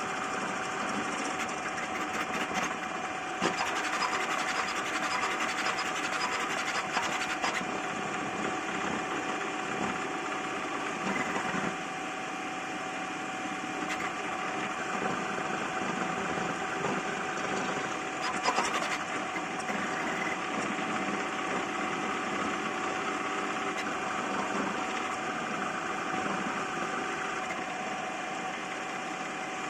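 CoreXY 3D printer printing at very high speed and acceleration: stepper motors and belts buzzing and rattling continuously as the toolhead darts back and forth, over a steady fan tone, with a few short louder spikes.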